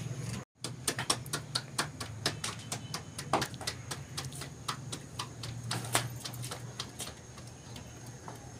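Hands slapping and patting a ball of wheat dough from palm to palm to stretch it into a roti: a quick run of sharp pats, about three or four a second, that eases off about seven seconds in.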